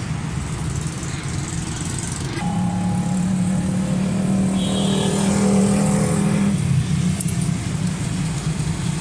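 A motor vehicle engine running steadily. A clearer pitched hum comes in about two and a half seconds in and drops away about four seconds later.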